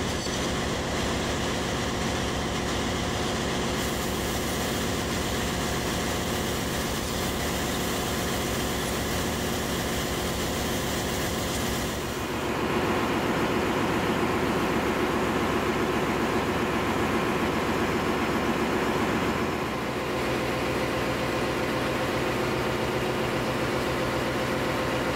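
Loud, steady drone of a ship's engine-room machinery running, with a fine even pulse like engine firing. The drone shifts in pitch and gets a little louder about halfway through, then changes again near the end.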